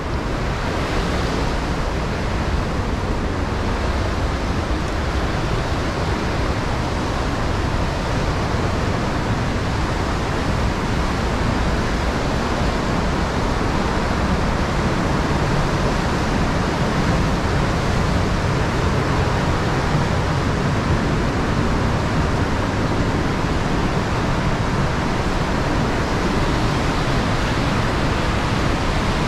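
Steady rushing of white-water river rapids.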